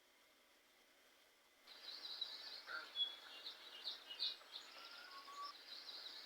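Small birds chirping and twittering over faint outdoor hiss, starting about two seconds in after near silence.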